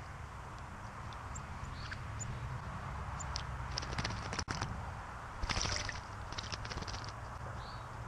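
Northern cardinal bathing in a birdbath, fluttering its wings and splashing the water in two short spells, the second longer, over a steady low rumble. A few short high bird chips come in between.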